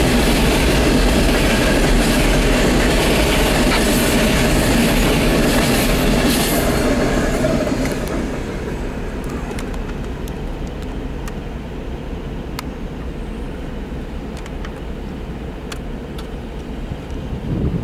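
Norfolk Southern coal train's hopper cars rolling past on the rails, loud and steady at first. About eight seconds in the noise drops to a quieter rumble with scattered clicks as the cars move away.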